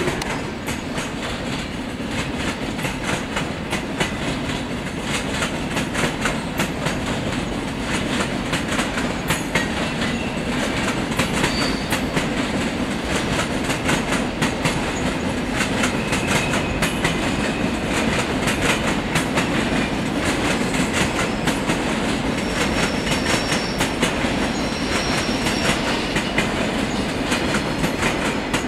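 SBB passenger coaches rolling past, their wheels clattering steadily over rail joints and points under a continuous rumble. Faint, brief high wheel squeals come and go in the second half.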